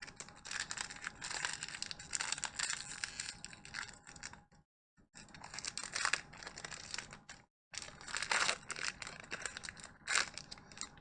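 Pokémon TCG booster pack's foil wrapper being torn open and crinkled by hand: three spells of crackling rustle separated by two short pauses, about four and a half seconds in and again about three seconds later.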